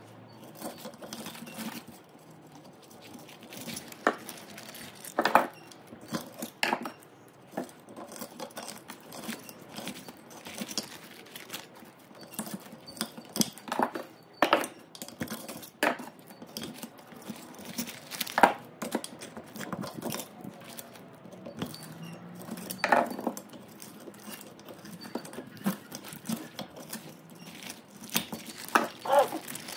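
Irregular metallic clinks, taps and knocks of hand tools working on an electric motor's stator while the burned copper windings are stripped out, with a few sharper knocks among many light clicks.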